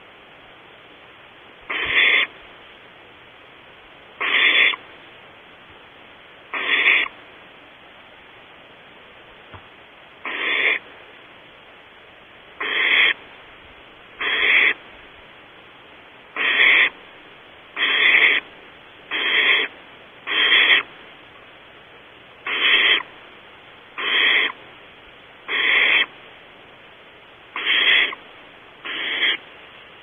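Barn owl nestling's raspy hissing calls, the food-begging 'snore' of owlets in the nest, given over and over: about fifteen harsh hisses of half a second each, one every one to two seconds, coming a little faster midway.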